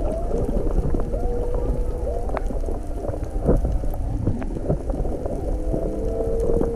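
Humpback whale song heard through the water: long held moans at a steady pitch, one early on and another starting near the end, between shorter rising and falling calls. Underneath is a steady low underwater rumble with scattered faint clicks.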